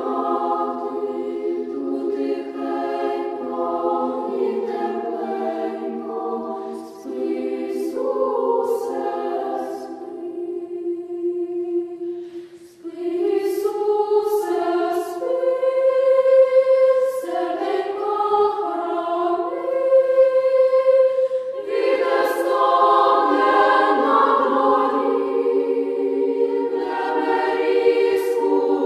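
A church choir singing in several parts, holding chords, with short breaks between phrases.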